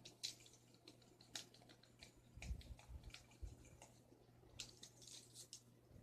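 Faint scratchy drawing strokes, a drawing tool rubbing across a surface in short clusters, with a few soft low knocks.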